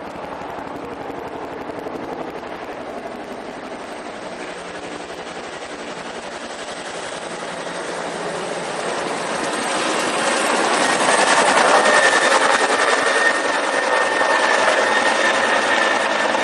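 Robinson helicopter flying low, its rotor blades chopping fast under the engine and gearbox whine, growing louder through the second half as it comes closer.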